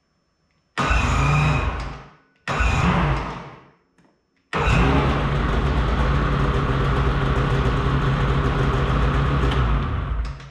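Polaris Patriot 850 two-stroke snowmobile engine starting: two short bursts that die away, then it catches about four and a half seconds in and idles steadily. It cuts off abruptly near the end as the magnetic tether kill switch is pulled.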